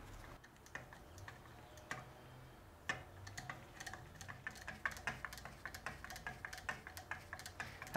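Faint detent clicks of a motocross rear shock's clicker adjuster being turned with a flat-blade screwdriver, a few at first and then a quicker run from about three seconds in; the clicks are being counted to record the damping setting.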